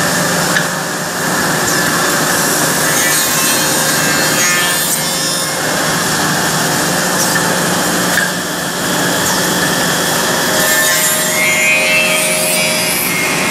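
A two-head CNC tenon milling machine running, its spinning cutter heads milling tenons into the end of a wooden workpiece. A loud, steady mix of motor hum and wood-cutting noise, with a couple of brief knocks.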